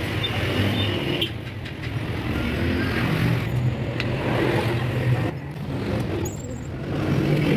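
Road traffic: vehicle engines running and passing, a continuous low drone that shifts in pitch.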